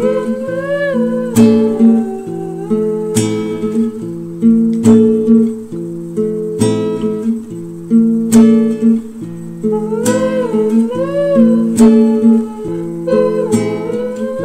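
Background music: chords struck about every second and three-quarters, with a melody line gliding up and down above them.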